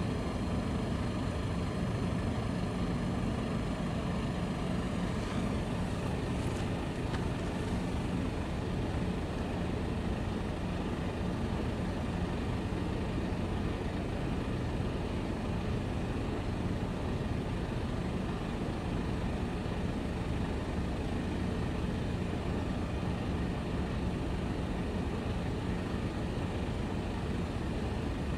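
Steady low rumble of distant engines, with a faint high whine that fades out about five seconds in.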